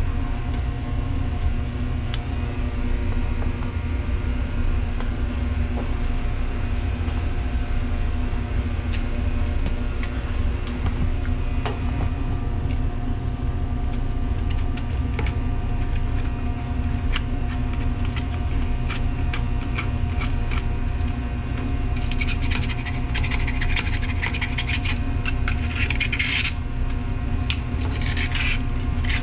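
Scraping and rubbing on a metal mounting surface as old gasket material is cleaned off for a new gasket, in strokes that grow denser and louder near the end. A steady low hum runs underneath.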